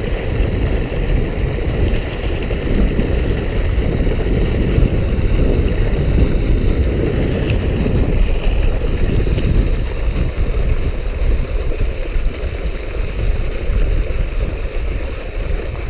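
Steady rush of water gushing from an outflow pipe and splashing into a canal, with wind buffeting the microphone.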